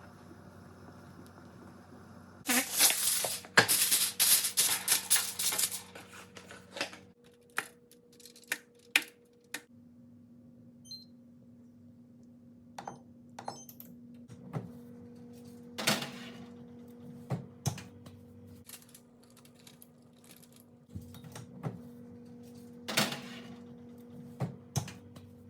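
Kitchen preparation handling: a few seconds of rattling and clattering, then scattered clicks and knocks, over a steady low hum.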